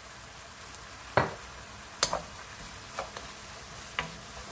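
Sliced bottle gourd and green onion sizzling in a frying pan with perilla oil while a wooden spatula stirs them, knocking against the pan four times, about once a second.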